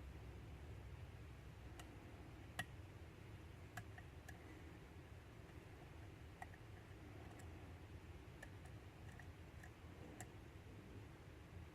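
Faint, irregular clicks of a lock pick working the pin stacks of a pin-tumbler lock cylinder under tension, about a dozen scattered single clicks over a low steady hum.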